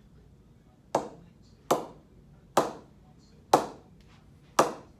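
Cricket ball knocked against the face of an SG KLR Extreme willow cricket bat, five sharp knocks each with a short ring, at uneven spacing of about a second. It is a ping test of the blade, and the crisp ping is taken as the sign of a good-performing bat.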